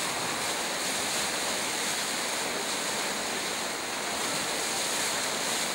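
Floodwater rushing: a steady, unbroken rush of fast-moving water.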